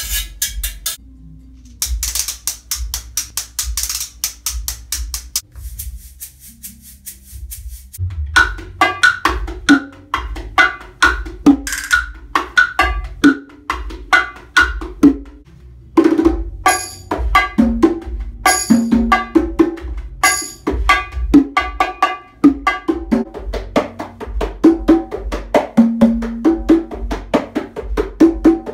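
Latin hand percussion recorded in overdubs. A metal shaker plays a fast steady rhythm for the first few seconds. From about eight seconds in, a pair of bongos is played with the hands in a steady pattern, and from about sixteen seconds in, a pair of metal-shelled hand drums is played, with sharp high clicks among the strokes.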